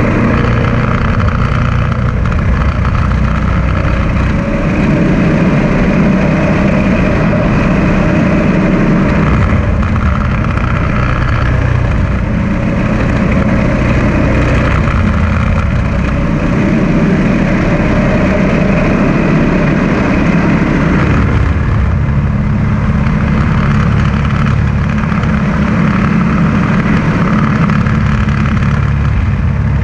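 Small go-kart engine running steadily while the kart drives along, its pitch rising and falling a little with speed.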